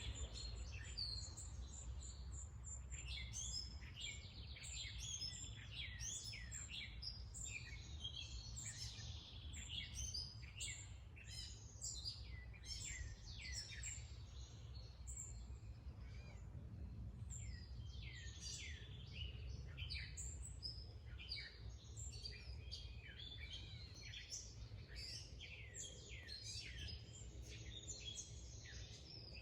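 Several songbirds chirping continuously in short, quick, overlapping notes, over a steady low outdoor rumble.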